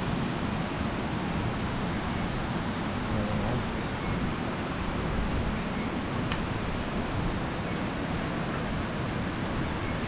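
Steady rushing roar of a waterfall, an even wash of water noise, with one faint click about six seconds in.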